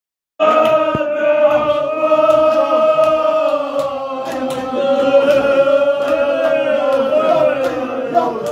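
Men's voices chanting together in a slow mourning elegy, holding long wavering notes, with sharp slaps scattered through it. The chant starts abruptly about half a second in.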